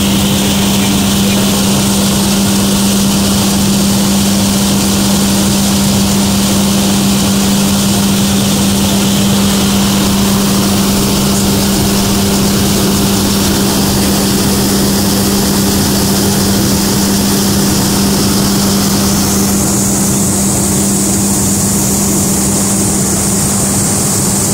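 A 5XQS-5 gravity destoner running while it cleans black pepper: a loud, steady machine hum with a constant low tone from its fan and vibrating screen deck, and a rushing hiss over it. About twenty seconds in, the hiss shifts higher.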